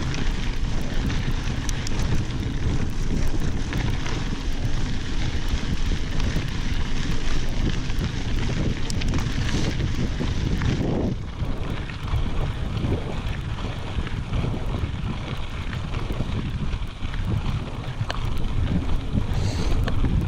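Wind buffeting an action camera's microphone while a mountain bike rolls over a gravel fire road, with tyre noise on the gravel and many small clicks and rattles from the bike.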